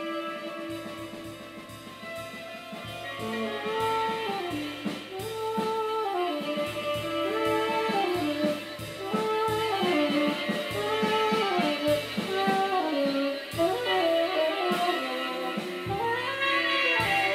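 Free-jazz duet of tenor saxophone and drum kit. The saxophone plays a repeated rising-and-falling figure about every second and a half over loose drumming.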